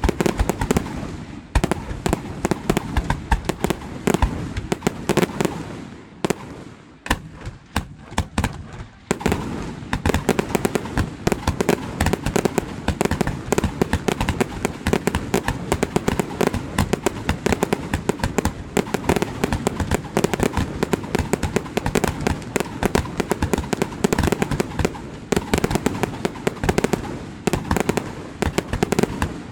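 Fireworks display: a rapid, continuous barrage of shell bursts and crackling bangs, thinning briefly a few seconds in before resuming densely.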